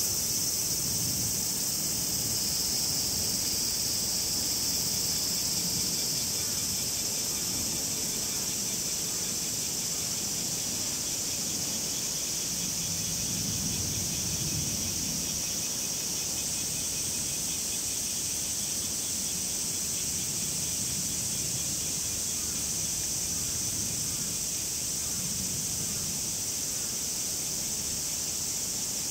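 Cicadas calling together in a steady, high-pitched shrill chorus, with a fainter pulsing call beneath it and a low background rumble.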